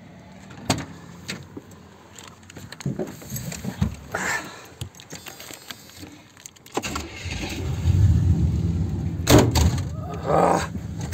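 Chevy G20 van's 5.7 V8 idling under keys jangling and scattered clicks and knocks. About seven seconds in, the low engine rumble becomes much louder and stays up, with a few sharp clacks near the end.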